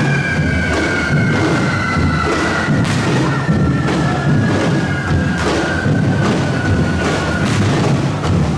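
Drumming with repeated firework bangs, over a long high whistle that slowly falls in pitch and stops near the end.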